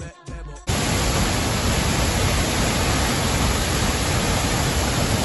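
Music breaks off, and less than a second in the steady rush of Glencar Waterfall's falling water cuts in abruptly and holds even.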